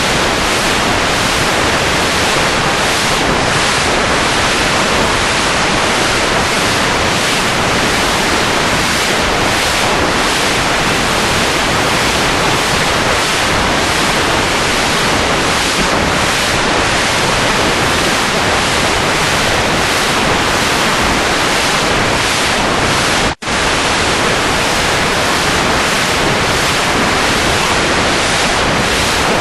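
Loud, steady rushing noise like static or hiss, even across all pitches, with no rhythm or tone in it. It cuts out for a split second about 23 seconds in and resumes at once.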